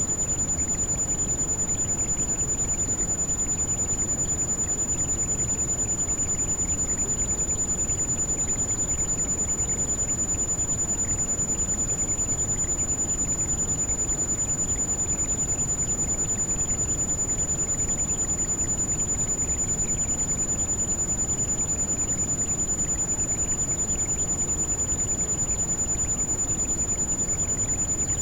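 Heavy rain falling as a steady, deep rushing hiss, with a constant high-pitched tone held over it. The tone is a tinnitus-like ring used for tinnitus sound therapy.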